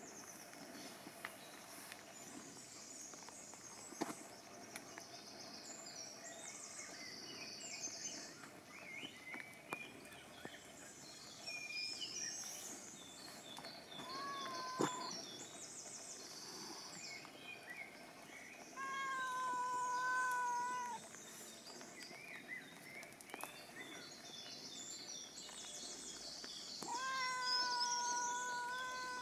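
A cat meowing: a short call about halfway through, then two long drawn-out meows of about two seconds each, with birds chirping in the background.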